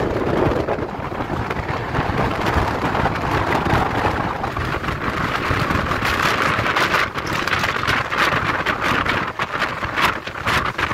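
Passenger train running along the track: a steady rumble with rattling clicks, and a hiss of rushing air that grows louder about halfway through.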